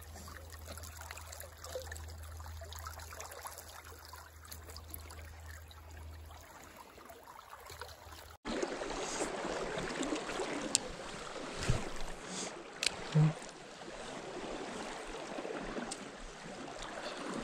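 Creek water flowing and trickling over the streambed. A little past the middle it cuts suddenly to a louder, closer rush of water, with a few sharp clicks in it.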